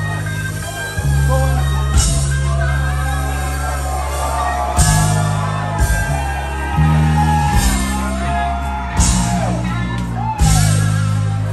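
Live rock band playing loud: sustained low bass-and-guitar chords that change every second or so, with cymbal crashes landing on several of the changes and a high part sliding up and down in pitch over the top.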